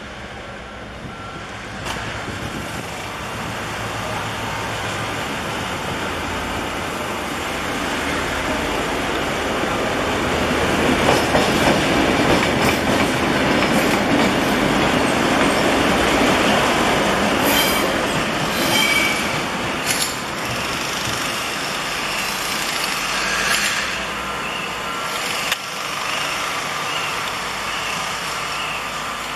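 Diesel-electric locomotive R157 of Taiwan Railway, hauling only a caboose, passes slowly with its engine running and its wheels rolling on the rails. The sound builds to its loudest about halfway through as the locomotive goes by, and in the second half there are a few brief high wheel squeals and sharp clicks.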